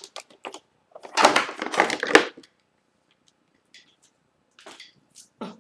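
Handling noise as a hair waving iron and its power cord are picked up: a few light clicks, then a second or so of rustling and clattering, followed by faint scattered knocks.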